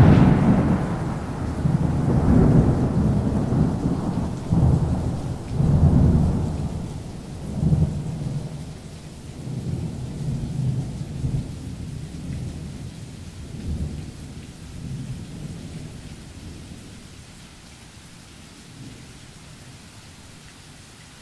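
Thunderstorm: rolling thunder over rain. The thunder is loudest at the start, then comes in a run of separate rumbles that fade over about fifteen seconds, leaving a faint hiss.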